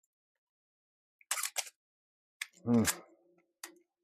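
Canon A1 35mm SLR's shutter and mirror mechanism clicking: a quick pair of sharp clicks about a second and a half in, and more clicks near the end, as it is fired and wound at 1/80 s. This is where the owner hears the Canon mirror lag he plans to have repaired. A short low murmur falls between the clicks.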